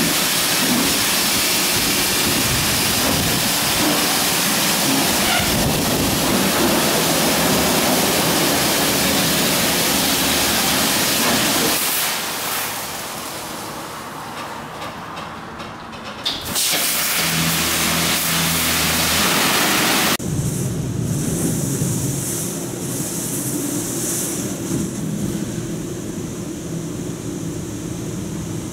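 High-pressure water jets of a D&S i5000 touch-free car wash hissing loudly as they spray a car. About halfway through the spray dies down and a low steady machine hum takes over. In the last third the spray is heard muffled, from inside the car.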